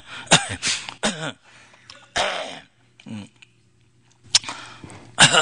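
A man coughing and clearing his throat several times in short bursts, with a pause about two-thirds of the way through.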